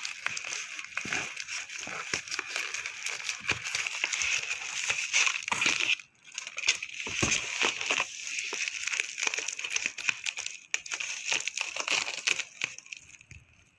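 Plastic bubble-wrap packaging crinkling and rustling as hands handle it and pull it from a cardboard box: a dense run of crackles that pauses briefly about six seconds in and stops shortly before the end.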